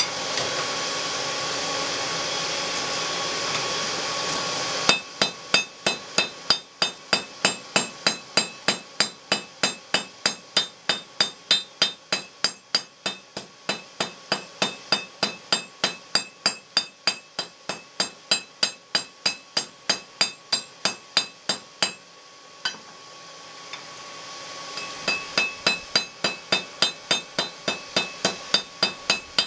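Steady rushing from the forge for the first few seconds, then a hammer striking hot steel on an anvil at about two to three blows a second, each blow ringing. The hammering pauses briefly about three-quarters through and then resumes, drawing the end of the iron rod down to a point.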